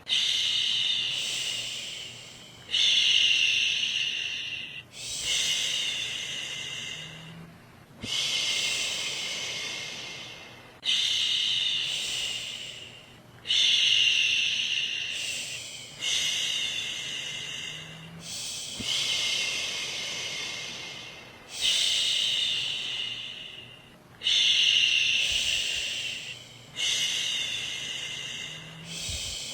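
A woman shushing, a long 'shhh' over and over, each one starting sharply and fading out over two to three seconds. It is the steady shushing used to soothe a baby to sleep.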